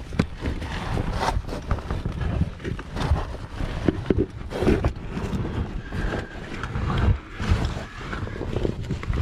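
Caver's oversuit and gear scraping, rustling and knocking against rock while squeezing up through a tight mine passage, with heavy breathing and grunts close to the microphone.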